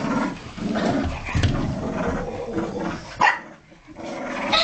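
A Kooikerhondje and a Tibetan Terrier–poodle mix growling as they play tug-of-war with a dog toy, broken by a short, loud bark about three seconds in.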